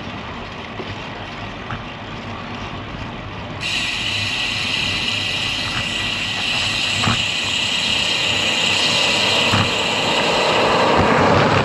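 Wind and road noise from a road bike riding a roadside bike path into a headwind, with traffic on the highway beside it. A steady high-pitched hiss sets in suddenly about three and a half seconds in, there are a couple of light knocks from bumps, and the noise grows louder toward the end.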